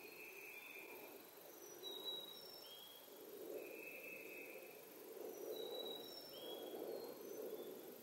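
Small songbirds calling: a clear whistled note held for under a second, repeated a few times, with shorter high chirps in between. A faint low rushing sound swells and fades underneath.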